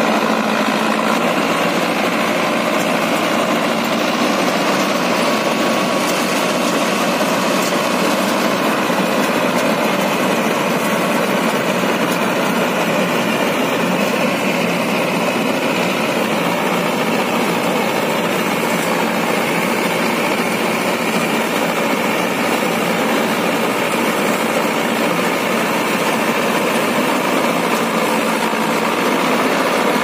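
Mahindra combine harvester running steadily as it cuts ripe paddy, a loud, even drone of engine and machinery with no breaks.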